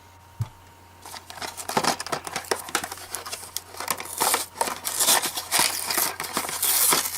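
A single soft knock, then from about a second in, continuous crinkling and rustling as the action figure's toy packaging is opened.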